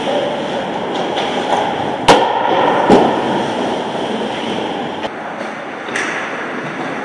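Ice hockey play in an indoor rink: a steady scraping and rumble of skates on ice, with two sharp cracks of puck and sticks less than a second apart about two seconds in, and lighter knocks later.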